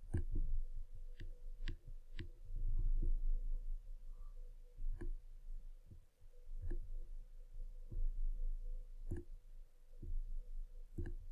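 Computer mouse clicking at irregular intervals, about a dozen sharp clicks, as an image is resized and dragged on screen. A low steady hum runs underneath.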